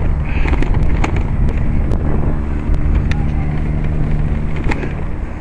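Wind buffeting the microphone and road rumble from a moving bicycle, with frequent small clicks and rattles from the bike and mount over the pavement. A low steady hum comes in about two seconds in and fades out just before the end.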